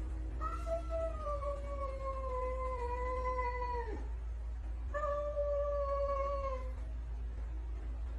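A domestic cat yowling, a warning caterwaul at the other cats: one long drawn-out yowl of about three and a half seconds that sinks slowly in pitch and drops away at the end, then a second, shorter yowl about a second later.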